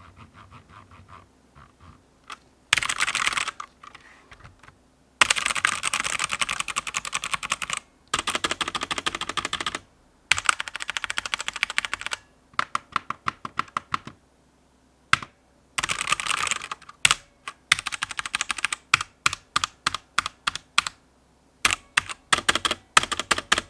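Langtu K003 mechanical keyboard being typed on: fast runs of rapid key clacks lasting a second or more each, then spaced-out single keystrokes with short gaps between them.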